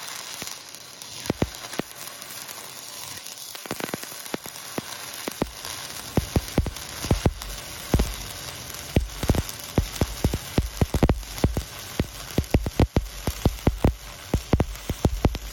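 Stick-welding arc from a cellulose-coated pipeline electrode burning on steel pipe: a steady crackling hiss with frequent sharp pops, which come thicker after about six seconds in.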